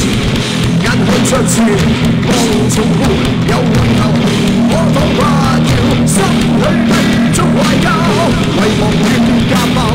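Rock band playing loud heavy rock: distorted electric guitars, bass guitar and a drum kit with repeated cymbal crashes.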